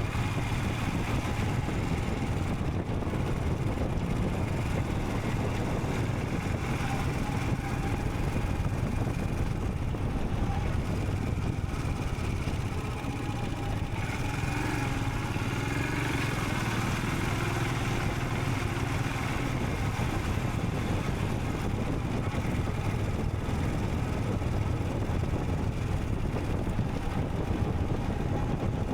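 Royal Enfield Scram 440 single-cylinder engine running steadily while the motorcycle is ridden along the road, easing slightly about thirteen seconds in.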